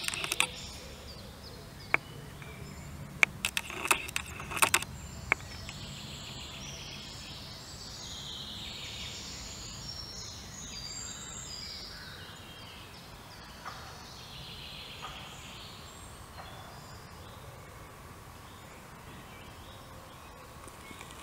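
Outdoor ambience with faint chirping birdsong, and a few sharp clicks in the first five seconds.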